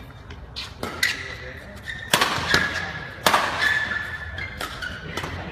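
Badminton rackets striking a shuttlecock in a fast defensive rally: a rapid, uneven series of sharp hits, about eight in a few seconds, in an echoing sports hall.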